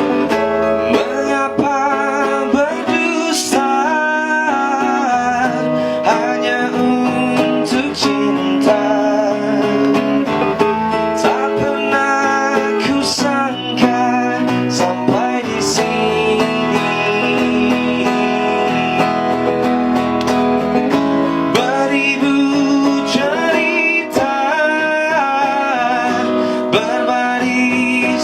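A man singing a melody over strummed acoustic guitar, the vocal heard plain, without added effects.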